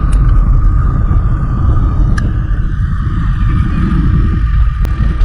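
A vehicle running steadily, a heavy low rumble with a constant hum above it.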